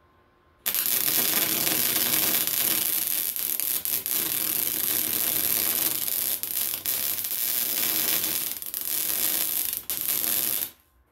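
Welding arc crackling and hissing on a cracked exhaust, switched on abruptly under a second in, held steadily for about ten seconds with brief flickers, then cut off sharply.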